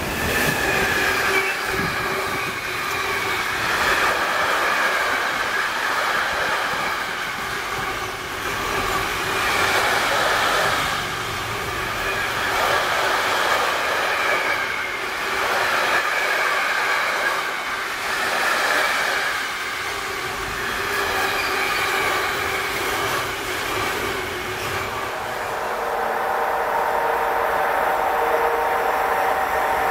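A long container freight train rolling past: steel wheels running on the rails, with a clatter that swells and fades every few seconds as the wagons go by. Near the end a steady whine comes in.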